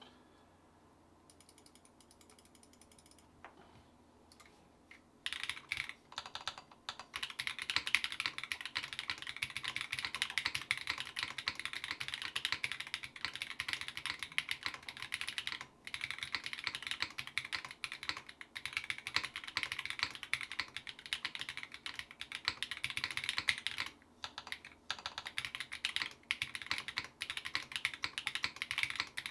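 Typing on a Geonworks Glare 65 mechanical keyboard with BSUN BCP switches, a carbon fibre plate and GMK Striker R2 keycaps. A fast, continuous run of keystrokes starts about five seconds in and has two brief pauses.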